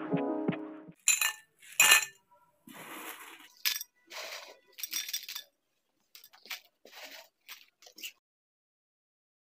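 Dishware clinking: two sharp clinks a little over a second in and again just before two seconds. A string of short, scratchy clinks and rattles follows and stops about eight seconds in.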